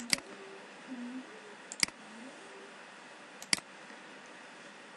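Three sharp computer mouse clicks, each about a second and three quarters after the one before, over faint room noise.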